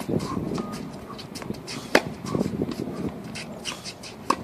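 Tennis racket striking the ball on forehand groundstrokes: two sharp pops about two seconds apart, with the player's movement on the hard court in between.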